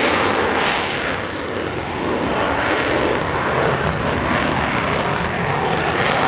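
F-16 fighter jet taking off: a loud, steady rush of jet engine noise at full power, dipping a little about a second and a half in.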